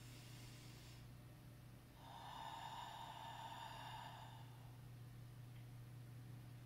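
One slow, audible breath about two seconds in, lasting a couple of seconds, taken while holding a standing chest-opener stretch, over a faint steady low hum.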